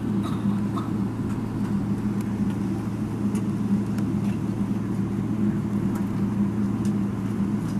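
Airliner cabin noise while the plane rolls slowly on the ground: a steady engine hum and rumble, with a few faint clicks.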